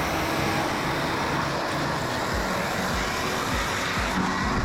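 Vacuum cleaner running in blower mode, a steady rush of air blown over a freshly washed portable air conditioner to dry it, with irregular low thumps from about halfway in.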